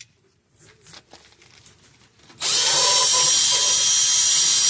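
Drill (screw gun) spinning a brush attachment, scrubbing rust from inside the steering knuckle's wheel-bearing bore. It starts suddenly about two and a half seconds in and runs steadily with a high whine, after a few faint knocks of handling.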